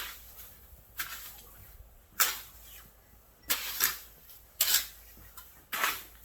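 Snow shovel scraping and scooping snow, six strokes about a second apart, each starting sharply and trailing off.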